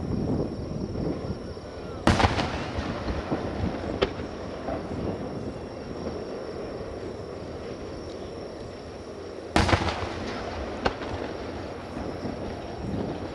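Aerial fireworks shells bursting: two loud booms, about two seconds and nine and a half seconds in, each trailing off into crackle, with single smaller bangs in between, over a steady low rumble.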